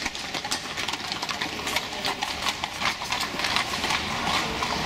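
Carriage horses' hooves clip-clopping on the street as the horse-drawn carriage gets under way: a run of irregular, sharp hoof strikes.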